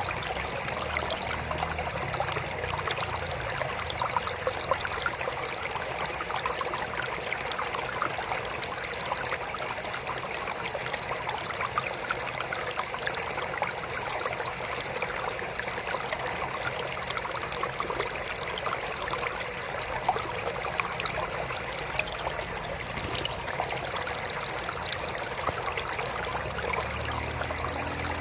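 Water trickling steadily in a mini aquarium, a continuous stream-like trickle dotted with many small splashes.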